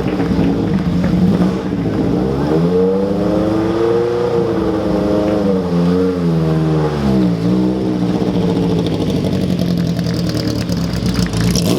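Bugatti Type 59's straight-eight engine being revved, its pitch rising and falling in a few throttle swells, then running steadily for the last few seconds.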